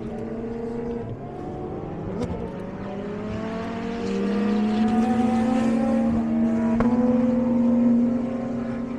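Several race cars' engines running hard along a racetrack straight, their pitch slowly rising as they accelerate. It gets louder from about four seconds in as a group of three cars passes, and is loudest near the end.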